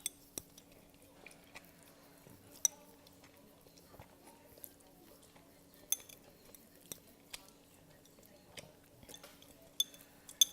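Eating utensils clinking against a ramen bowl: a scattering of sharp, briefly ringing clinks, the loudest about two and a half seconds in, about six seconds in and right at the end. A faint steady hum runs underneath.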